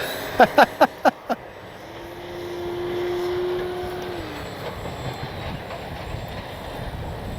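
Strong wind buffeting the microphone. Near the start there are five quick, short chirps. From about two seconds in, the FMS Ranger's small electric motor and propeller give a steady hum that drops away a little after four seconds in.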